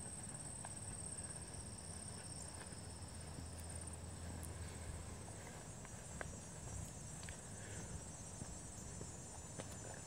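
Meadow insects trilling steadily at a high pitch, over a low steady rumble, with a few faint ticks scattered through.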